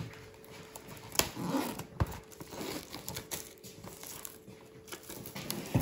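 Clear cellophane wrap on a box of Lindor chocolates crinkling and rustling as the box is handled, with two sharp taps about one and two seconds in.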